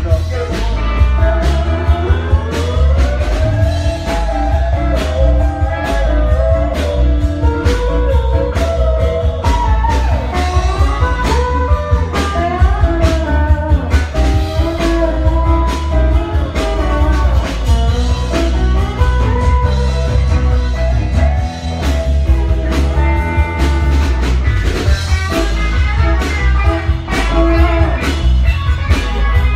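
Live country band playing: electric guitar lines over bass guitar and a drum kit, heard loud and close to the stage with a heavy, booming low end.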